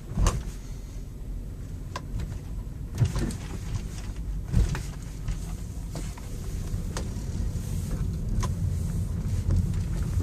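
Automatic car wash heard from inside the car: a steady low rumble with scattered sharp knocks and taps on the car's body every second or two.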